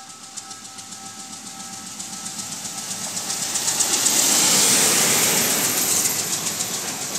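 Sri Lanka Railways Class M8 diesel locomotive and its coaches approaching and passing close by, the engine running and the wheels clicking rapidly over the rails. The sound grows to its loudest about four to five seconds in as the locomotive goes past, then eases a little.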